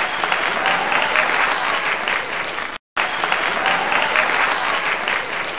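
Loud applause, a crowd clapping, which cuts out for a split second about halfway through and starts again, then stops abruptly.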